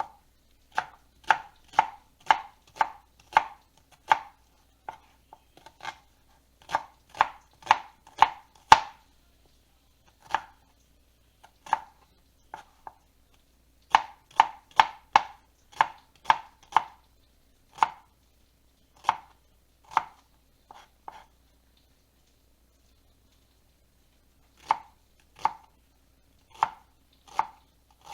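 Kitchen knife chopping on a cutting board, in runs of several strokes at about two a second with short pauses between runs.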